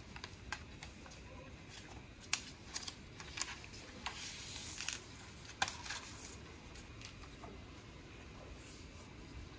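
Thin frosted plastic protective sheet being peeled off a keyboard, rustling, with a string of sharp crackles over the first six seconds.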